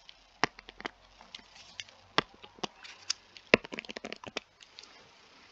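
A stylus clicking and tapping on a tablet screen during handwriting: a run of sharp, separate clicks, loudest about three and a half seconds in and coming thickest between about three and four and a half seconds in.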